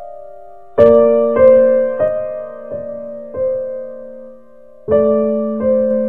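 Relaxing piano music: a chord about a second in, then single notes about every two-thirds of a second, each ringing on and fading, and another chord near the end.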